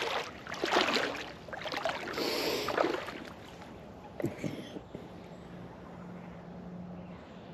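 Rustling and bumping on the microphone for about three seconds as the camera is handled and set to face the lake, with a few brief knocks a little after four seconds. Then quiet lakeside ambience with a faint steady low hum.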